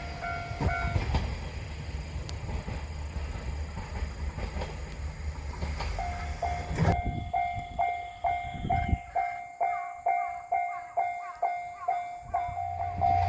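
A train running past on the rails, a low rumble with clatter. About halfway through the sound changes abruptly to a Japanese level crossing warning bell ringing, about two strokes a second.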